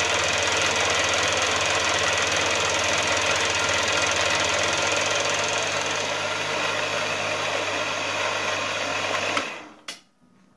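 Milling machine fly cutting the face of a steel block: the spinning fly cutter gives a loud, steady, rhythmic cutting noise. It stops abruptly near the end, followed by a single click.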